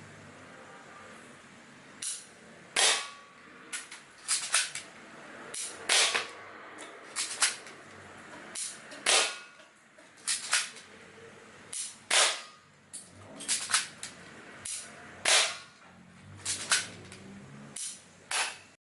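Beretta-replica airsoft pistol firing about twenty times: sharp cracks at irregular intervals, sometimes two or three in quick succession.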